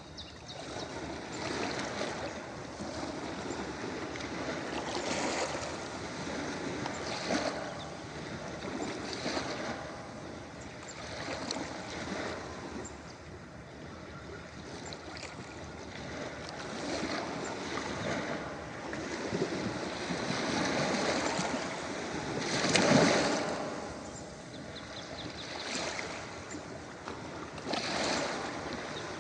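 Ocean waves washing onto a beach, swelling and fading every few seconds, with the loudest wave breaking about three-quarters of the way through.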